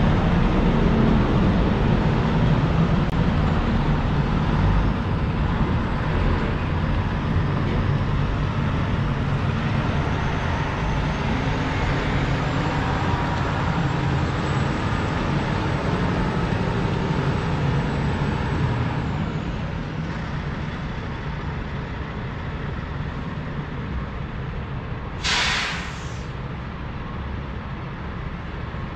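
Diesel semi truck running and pulling away across a trailer yard, its rumble gradually growing fainter. Near the end comes one short, sharp air hiss, like a truck's air brakes venting.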